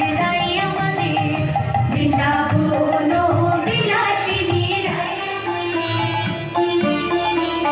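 Music: an instrumental passage of a Bengali folk song, a melody over a steady drum beat with no singing.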